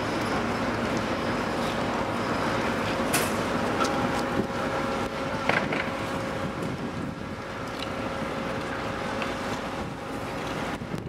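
Steady hum of dockside machinery, with short knocks about three and about five and a half seconds in.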